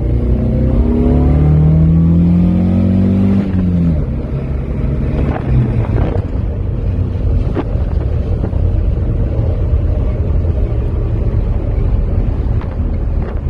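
Datsun 120Y's L18 inline-four accelerating, heard from inside the cabin: the engine note climbs for about three and a half seconds, drops at a gear change, then settles into a steady drone under road and wind noise as the car cruises.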